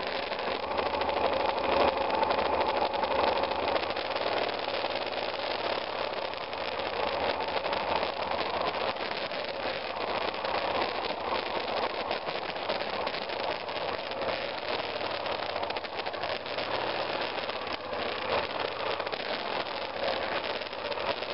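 2002 BMW F 650 GS Dakar's single-cylinder engine running steadily while the motorcycle is ridden over a rough, muddy dirt trail.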